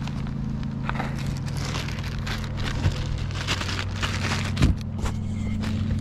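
Rustling and light clicks of hands handling parts and packaging, over a steady low hum like a motor or engine running.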